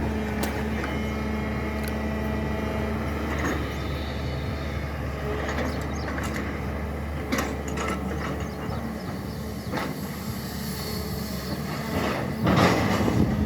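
SANY excavator's diesel engine running steadily while digging, with scattered clanks and knocks from the machine at work and a louder burst of noise near the end.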